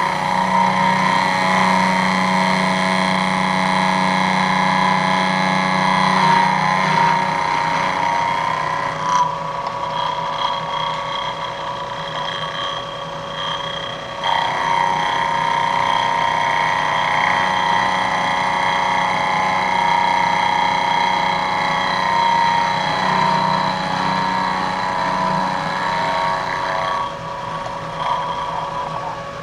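End mill in a vertical milling machine side-milling an aluminum steering damper bracket: a steady, ringing cutting whine. It dips about nine seconds in, comes back strongly around fourteen seconds, and eases off near the end as the cut finishes.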